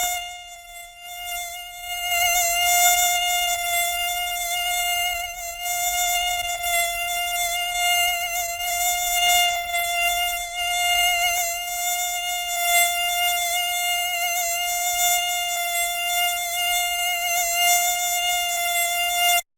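A steady high-pitched buzzing whine, wavering slightly in pitch, that cuts off abruptly near the end.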